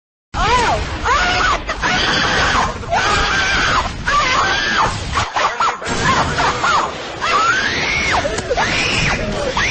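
Screaming, one loud yell after another, each rising and falling in pitch, over a dense noisy background. It starts abruptly and is a meme sound effect clip.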